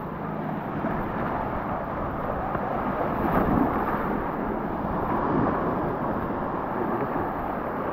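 Steady wind buffeting the microphone of a GoPro action camera, mixed with small waves washing over a coral-rubble beach.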